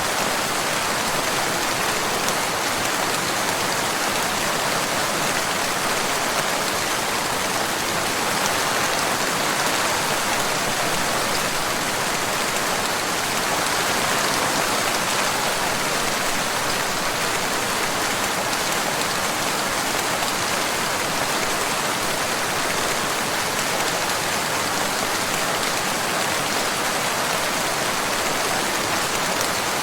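Steady rain falling, an even unbroken hiss of many drops with no thunder.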